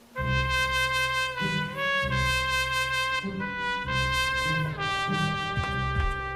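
Brass music: a trumpet-led band playing a slow run of long held notes over a low bass line.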